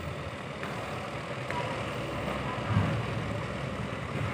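A boat engine runs steadily with a low hum, and one dull thump comes a little under three seconds in.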